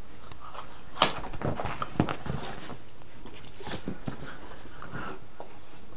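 A small dog play-fighting with a person's hand and a toy on bedding: scuffling and rustling, with two sharp knocks about one and two seconds in.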